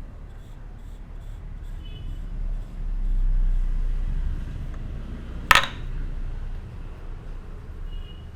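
A single sharp crack about five and a half seconds in, the loudest sound, over a low steady rumble.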